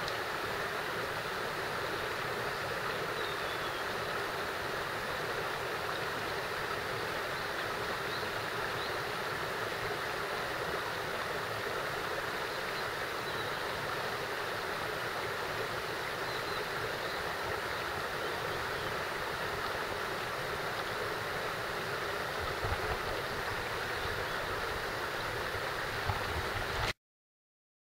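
Mountain stream rushing steadily over rocks, with a couple of low bumps near the end, then cutting off abruptly.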